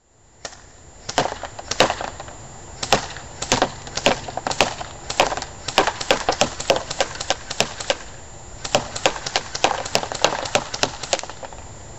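A JG SIG 552 airsoft electric rifle shooting BBs into a paper target on pegboard, each shot a sharp crack. There are single shots about half a second apart at first, then two quicker strings of about five shots a second, with a pause of about a second between them.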